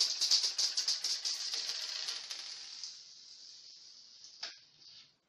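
Fidget spinner's unlubricated ball bearing, just damaged, rattling as the spinner turns in the fingers: a fast gritty clicking that fades out over about three seconds. One sharp click follows near the end.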